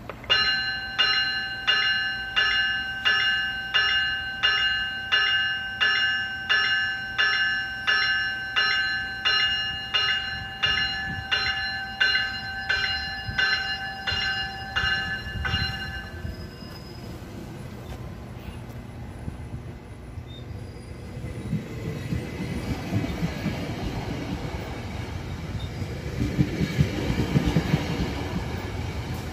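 A GO Transit commuter train's bell ringing in even strikes, about three every two seconds, stopping about 16 seconds in. Later a passing GO train's wheels rumble and clatter over the rails, growing louder toward the end.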